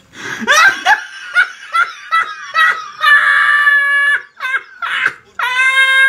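Loud laughter that breaks out suddenly in a quick run of short laughs, with two long, high-pitched squealing laughs, one about three seconds in and one near the end.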